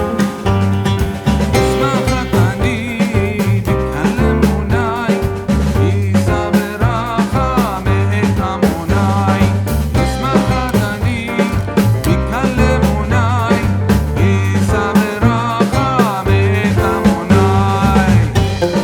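Background music with a steady beat and plucked strings, in a country or bluegrass style.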